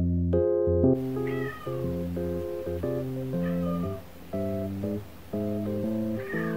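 A domestic cat meowing three times, about a second in, in the middle and near the end, over background piano music.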